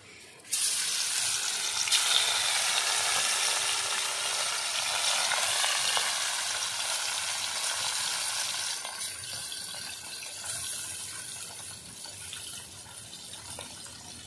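Small tilapia pieces dropped into hot oil in a kadai, frying with a loud sizzle that starts suddenly about half a second in and slowly dies down.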